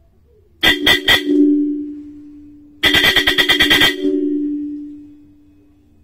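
Electric solenoid bell horn, its plunger hammering the bell: three quick strikes about half a second in, then a rapid run of about a dozen strikes near the three-second mark, each run leaving the bell ringing and dying away over a second or so.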